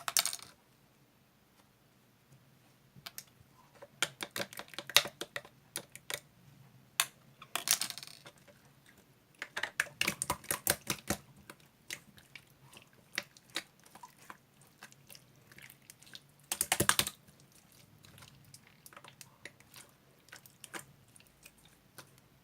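Irregular runs of sharp clicks and taps, like typing on a keyboard, in bursts with pauses between, and a short louder burst of noise late on.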